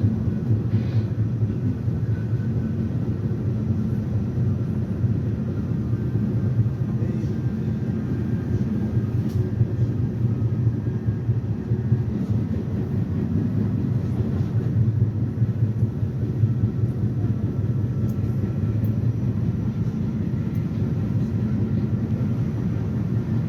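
R68A subway car running at speed between stations, heard from inside the car: a steady, loud rumble of wheels and running gear, with a faint steady whine of the traction motors above it.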